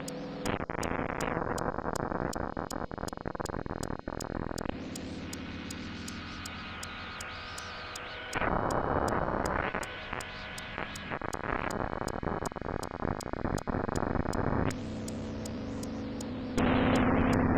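Harsh improvised software-synthesizer noise music: dense, distorted noise textures with low droning tones, switching abruptly to a new texture every few seconds. A faint high ticking runs about three times a second.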